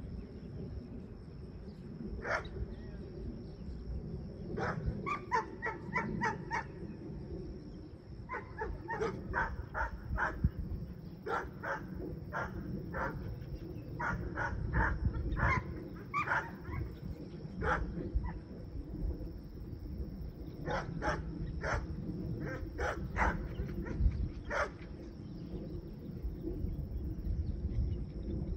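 Dog barking over and over, in quick runs of several barks with short gaps between.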